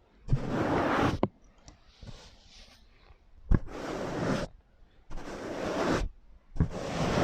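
Close-miked ASMR prop sounds: about four scratchy, rustling strokes of roughly a second each, every one starting with a sharp tap, with short pauses between and a fainter scratching in the first pause.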